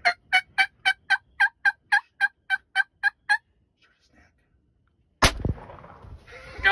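A run of about fourteen evenly spaced turkey yelps, about four a second, each breaking upward in pitch, stops a little past three seconds in. About two seconds later comes a single loud shotgun blast, then excited shouting near the end.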